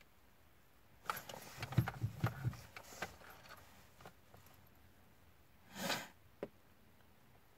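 VW Golf Mk2 turbo-diesel failing to crank on a weak battery: a cluster of clicks and a few slow, low thumps from the ignition and starter, then a short rushing noise and one last click.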